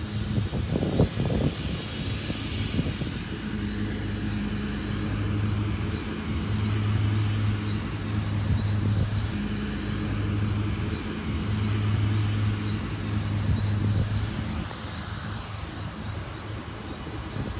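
A steady low motor hum that swells and fades a little every few seconds, with faint high chirps over it.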